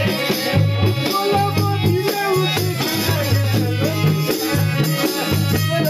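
Pahari nati folk music for dancing: a hand-played drum keeps a steady beat under a melody line, with a jingling rattle on top.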